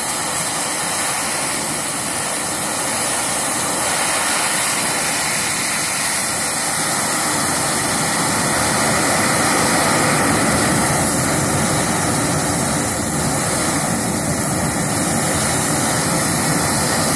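Compressed air blasting from a nozzle into a burning tree stump: a steady, loud hissing roar as the air jet fans the fire and throws up sparks.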